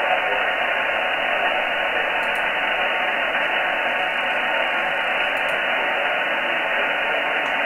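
Shortwave receiver tuned to the 80 m amateur band in lower sideband, playing steady band noise and static, with no voice coming through. The hiss stops sharply above about 3 kHz, cut off by the 3 kHz receive filter.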